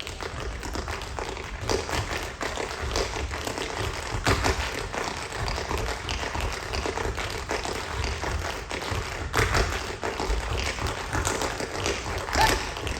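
Tap shoes striking a stage floor in a fast, dense run of taps, mixed with heavier stomping thuds.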